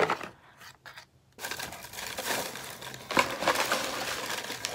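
Shredded paper packing filler rustling and crackling as hands dig through it in a cardboard box. It starts about a second and a half in and goes on as a dense crackle.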